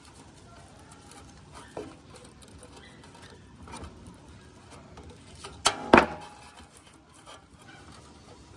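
Adjustable wrench clinking and clicking on the nut of a metal tube fitting as it is worked loose, with scattered light clicks and two sharp metallic knocks close together about six seconds in.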